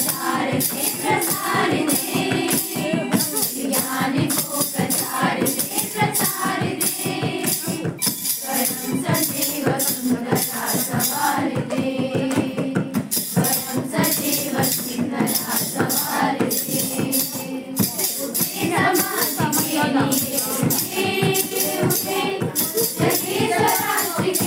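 A group singing a song together, with rhythmic hand-clapping or a shaker keeping a steady beat.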